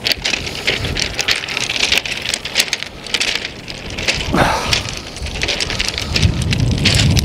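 Footsteps crunching and clattering over a beach of rounded pebbles, the stones knocking together in a dense, irregular crackle. A low rumble rises near the end.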